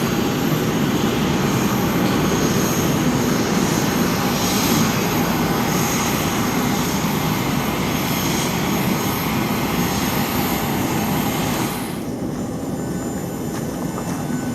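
Steady rushing noise of a parked Boeing 737-800 during boarding. About twelve seconds in, the high hiss drops away and the sound turns duller and slightly quieter.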